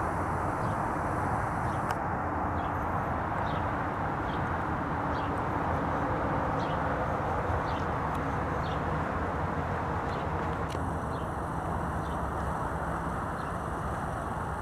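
Steady outdoor background hum of distant traffic, with faint short high chirps repeating about once a second.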